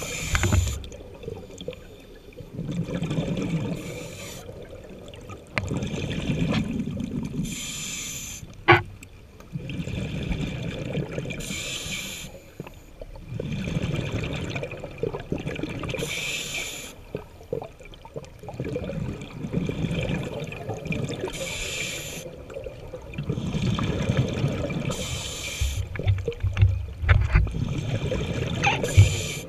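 Scuba diver breathing through an open-circuit regulator: a short hissing inhale every three to four seconds, each followed by a longer rumble of exhaled bubbles. A single sharp click comes about nine seconds in, and a few low knocks come near the end.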